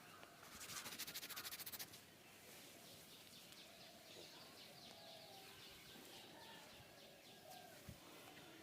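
Faint birds chirping in the background. About half a second in comes a burst of rapid scratchy strokes lasting just over a second, the loudest sound here.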